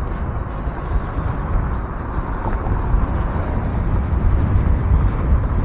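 Steady wind noise on the camera microphone of an electric scooter riding at speed, mixed with the tyre and engine noise of a car passing close alongside in the next lane.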